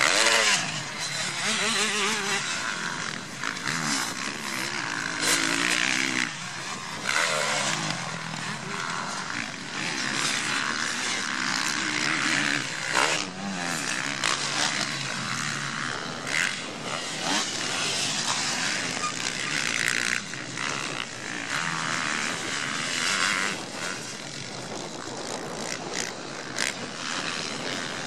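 Motocross motorcycles racing: engines revving up and down with the throttle as the bikes jump and pass, getting louder and fading again several times.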